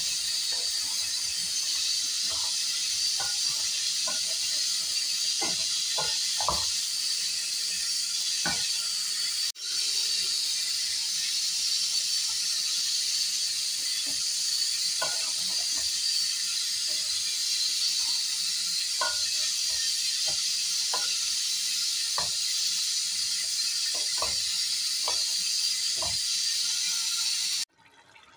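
Steady hiss of chicken karahi sizzling in an aluminium pot, with scattered light knocks and scrapes of a slotted spatula stirring the chicken against the pot. The sound cuts off suddenly near the end.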